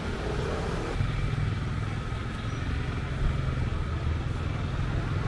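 Motor traffic in a street: a vehicle engine running close by, a steady low rumble under general street noise.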